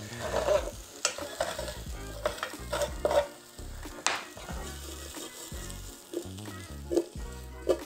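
Cubed parboiled potatoes sizzling as they fry in oil in a nonstick pan, stirred and tossed with a spatula. A few sharp clicks of the spatula against the pan come through the sizzle.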